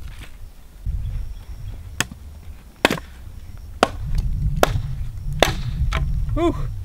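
Dry mesquite branch being smashed against rock to break it into firewood: five sharp wooden cracks, a little under a second apart. The wood is very dense and hard.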